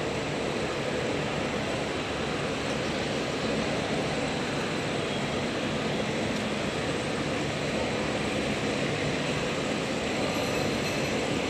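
Steady rushing ambient noise of an airport terminal concourse, with no single sound standing out.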